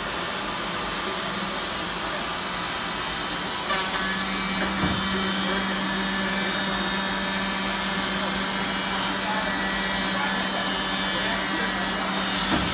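Vector Revolution 180 CNC contour edgebanding machine running, a steady whirring hiss with a constant high whine. A low hum joins about four seconds in, with a soft knock about five seconds in.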